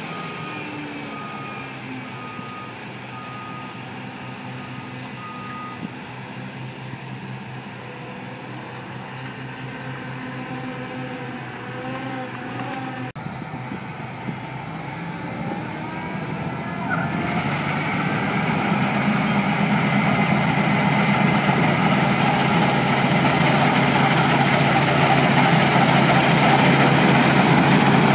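New Holland TC5080 Hillside combine harvester running, with a short high beep repeating evenly that stops about six seconds in. From about two-thirds of the way through, the machine noise grows much louder and fuller as the combine cuts wheat close by.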